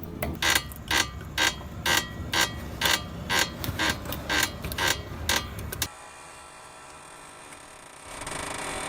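A damaged suspension ball joint clicking in a regular rhythm, about twice a second, for roughly six seconds as the wheel is worked. The clicking then stops, and a steady hiss comes in near the end.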